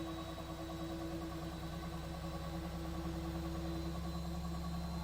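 Haier HWF90AN1 front-loading washing machine in its spin cycle: the drum and motor spinning with a steady hum.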